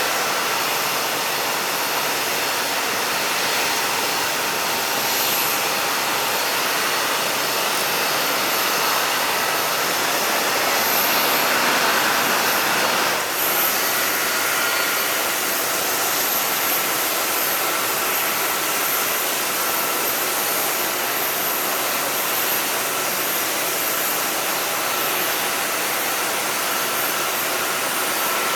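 Jet airliner engines running, a steady rush with a thin high whine and a fainter mid-pitched tone. The sound swells slightly and then shifts briefly just after halfway.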